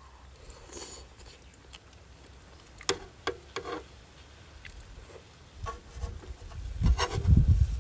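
A few light clicks and knocks, then wind buffeting the microphone with a low rumble for the last second or two.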